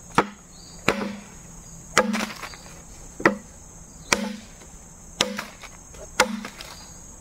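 Traditional Sarawak parang (machete) chopping into thick, very old, very hard bamboo: seven sharp blows about a second apart, each with a short ring.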